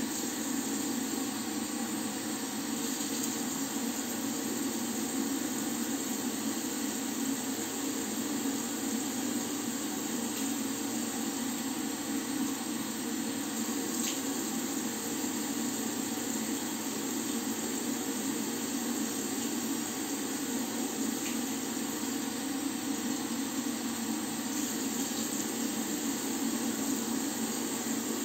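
Tap water running steadily into a bathroom washbasin while hands wash in it and scoop water up to the face.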